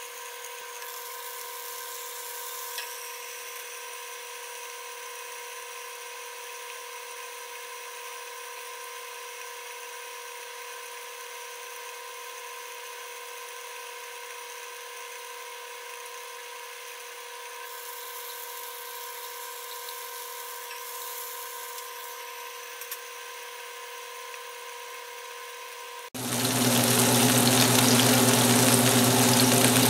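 Chicken breast pieces frying in oil under a glass lid: a faint, muffled sizzle with a steady high whine over it. A few seconds before the end the sound jumps to the open pan's sizzle, much louder and denser.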